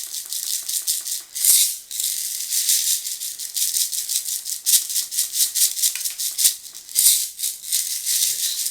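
Sugar sprinkles rattling in their shaker container as it is shaken, a dense fast rattle with two harder shakes.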